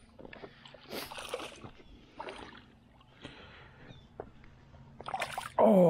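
Quiet, scattered splashes and scuffs: a hooked smallmouth bass splashing in the shallows at the rocky edge while the angler steps across the rocks to land it.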